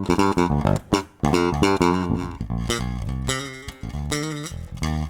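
Tagima TJB-4 electric bass played through its newly installed deOliveira preamp in active mode: a continuous line of separate notes with a strong low end, stopping abruptly at the end.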